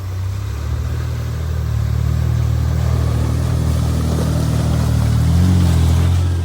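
Four-wheel drive's engine running under load, low and steady and building in level, its pitch rising a little just after five seconds in.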